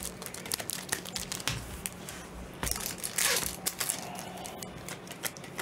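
Foil wrapper of a trading-card pack crinkling and tearing as it is handled and ripped open, in irregular crackly bursts, the loudest a little past halfway.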